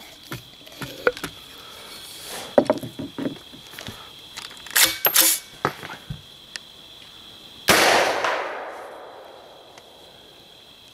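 Small clicks and knocks as the X-Products Can Cannon golf ball launcher is loaded and shouldered, then, about three-quarters of the way through, a single sharp shot launching a golf ball, with a long fading tail. A steady high insect chirr runs underneath.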